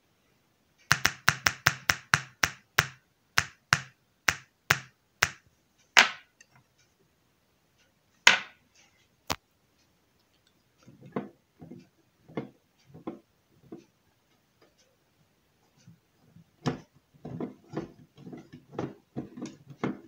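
Loudspeaker wired through a coupling capacitor to a switch-mode power supply's output, giving a quick series of sharp clicks as the capacitor lead makes and breaks contact, then a few single clicks. There is no steady hum or whine between the clicks. Later come softer, irregular knocks and taps as the supply's open box and wiring are handled.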